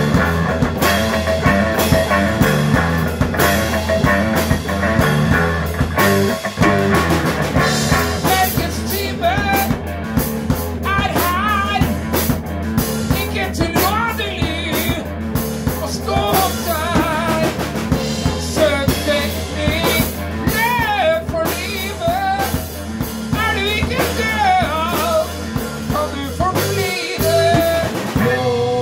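Live rock band playing: two electric guitars, electric bass and drum kit. From about nine seconds in, a lead line of bending, wavering notes rides over the band.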